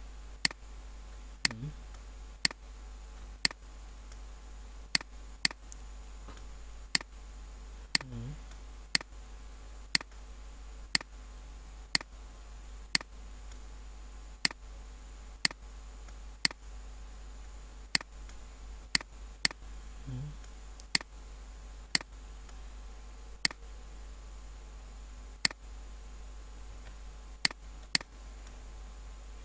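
Computer mouse clicking about once a second at an uneven pace, each click placing an anchor point with the Pen tool while tracing an outline.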